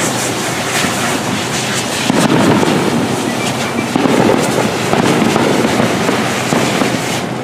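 Steady rush of a fire hose spraying water onto burning brush, mixed with dense crackling and popping from a ground firework sparking in the vegetation. The rushing grows heavier about two seconds in and again near the middle.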